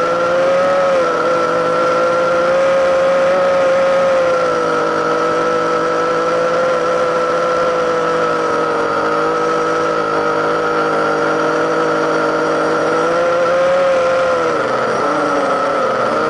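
Drone's motors and propellers running with a steady, loud whine, heard close up through the camera on board. The pitch wavers slightly, then drops and wobbles near the end.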